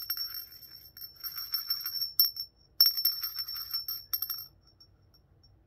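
Small porcelain Hummel hand bell shaken by its handle: a high, clear ringing of rapid clapper strikes in three bouts, fading out a little more than four seconds in.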